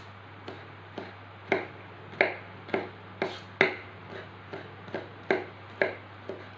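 Kitchen knife chopping garlic on a plastic cutting board: a string of sharp knocks, about two a second and uneven in strength, over a steady low hum.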